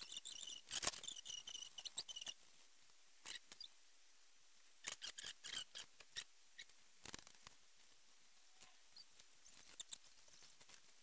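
Pencil strokes scratching on paper as fur is sketched in, played back sped up: clusters of quick short scratches with pauses between them, densest in the first two seconds.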